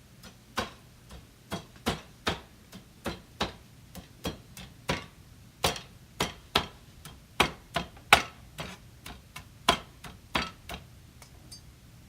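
Knife chopping on a cutting board: sharp, irregular knocks, about two a second.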